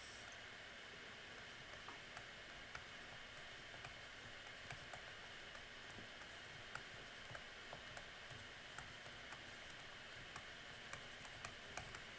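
Faint, irregular tapping clicks over a steady hiss, coming more often near the end.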